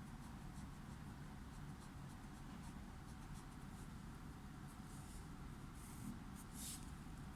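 Faint scratching of a drawing tool on paper: a series of short strokes, with a longer, louder stroke near the end, over a low steady hum.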